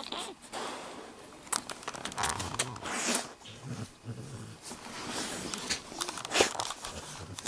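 A dog making low grumbling vocal sounds close to the microphone, a few of them about two to four seconds in, amid rustling of fur against the microphone.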